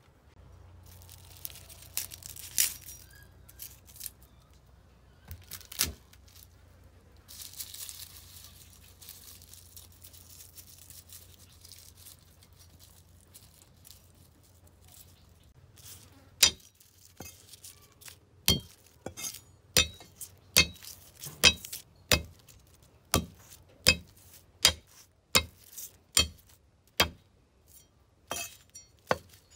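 Cleaver knocking on a wooden chopping block as garlic cloves are cut and crushed: a few scattered clicks at first, then from about halfway a series of sharp knocks, roughly one or two a second.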